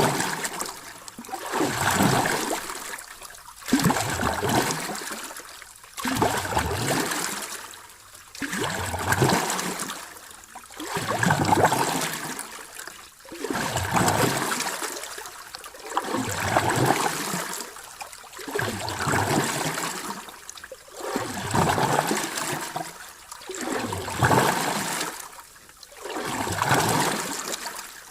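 Small sea waves washing in and draining back, each surge swelling and fading in a regular rhythm about every two and a half seconds.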